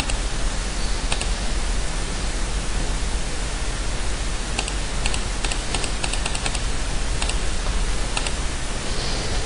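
Steady recording hiss with a low hum, and a scatter of computer mouse and keyboard clicks, most of them bunched together about halfway through.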